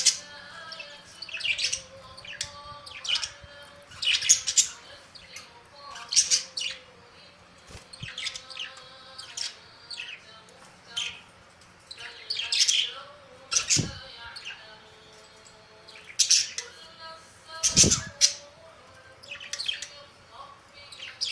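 Pet lovebirds and budgerigars chirping in short, high calls every second or two over a faint steady hum. Two low thuds come in the second half.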